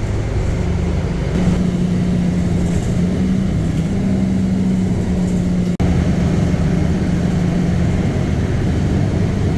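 City bus engine and road noise heard from inside the cabin while the bus is moving: a steady low hum whose pitch shifts slightly. There is a brief break about six seconds in.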